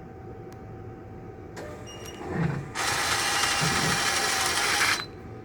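Label printer of an RL5000X scale running its feed mechanism after a printer reset from the diagnostics menu. A quieter whir builds from about a second and a half in, then a loud steady mechanical whirring runs for about two seconds and cuts off suddenly.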